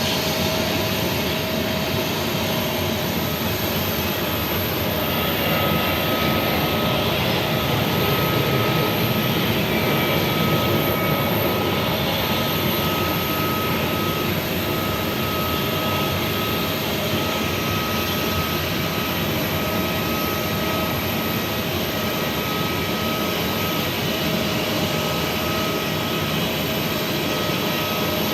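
Jet airliner engines at taxi idle: a steady rushing noise with a thin whine running through it, swelling slightly about six to twelve seconds in.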